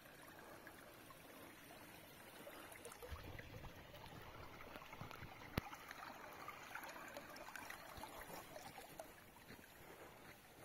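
Faint steady rush of water flowing along a narrow concrete channel, its flow raised by recent rains. A single sharp click about halfway through.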